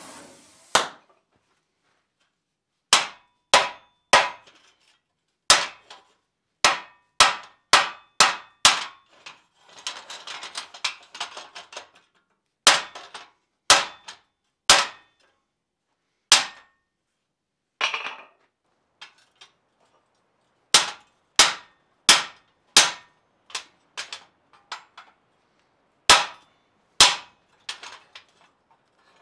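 Hand hammer striking steel rivets through a rivet set, peening the heads over to join the plates and bars of a forged steel wine rack. About two dozen sharp metallic strikes come in irregular groups with pauses between them.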